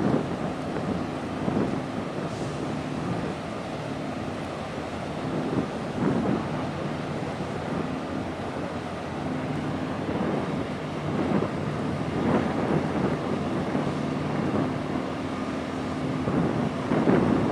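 Wind gusting on the microphone over the low, steady drone of a passing large container ship's engines.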